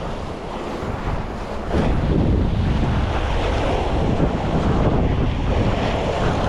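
Wind buffeting the microphone over waves washing against a rock jetty, growing louder about two seconds in.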